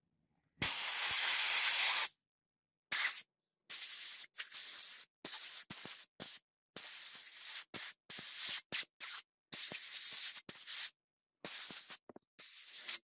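Soda-blasting gun spraying compressed air and soda at a metal sunglasses frame in on-off bursts of hiss: one longer, louder blast about half a second in, then a string of shorter bursts.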